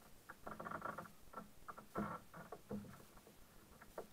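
Irregular muffled pattering and light knocks of a kayak paddle and water against a plastic sit-on-top kayak as the paddle is lifted and moved, with the loudest knock about two seconds in.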